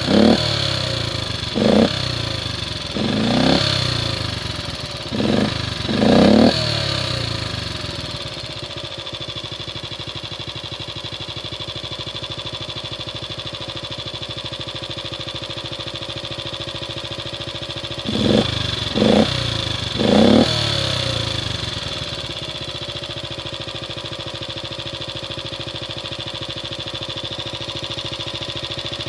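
Honda Super Cub C100's small single-cylinder four-stroke engine, running after a carburettor overhaul: it is blipped up and down about six times, settles to a steady idle, is blipped three more times about two-thirds of the way through, then idles again.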